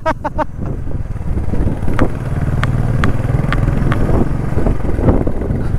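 Motorcycle engine running steadily while riding, with a few sharp clicks about halfway through.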